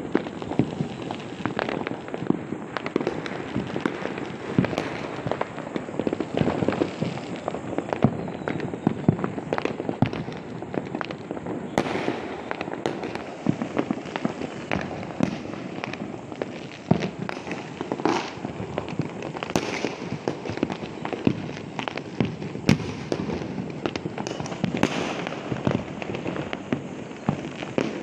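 Fireworks and firecrackers bursting: a dense, continuous crackle of sharp pops several times a second, with louder bangs standing out every second or two.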